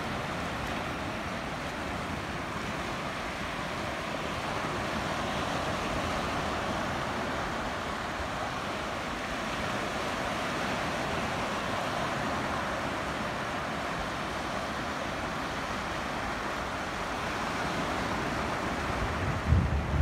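Sea waves washing on a shore: a steady hiss of surf with gentle swells. A low rumbling burst comes just before the end.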